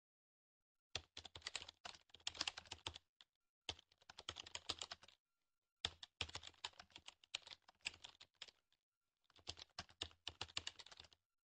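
Typing sound effect of rapid key clicks in four runs of a second or two each, with short gaps between, as slide text is typed out letter by letter.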